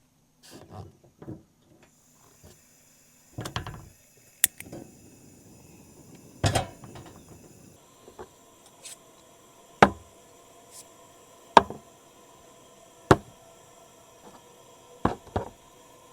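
A series of sharp knocks and clacks, about seven of them at irregular intervals and closer to evenly spaced in the second half, over a faint steady hiss.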